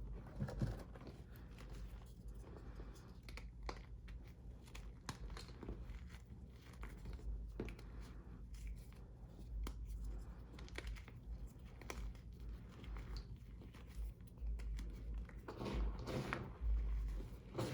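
Re-formed gym chalk being crushed: scattered small crunches and crackles that grow denser and louder near the end. The chalk is not fully dried, which makes the crush crunchy.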